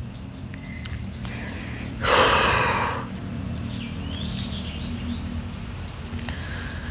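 A man breathing hard, with one loud, heavy breath lasting about a second about two seconds in: he is catching his breath after an emotional outburst.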